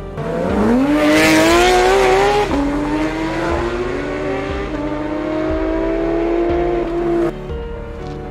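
Supercar engine accelerating hard. Its pitch climbs quickly, drops sharply on an upshift about two and a half seconds in, then climbs again more slowly through the next gear. It breaks off abruptly near the end.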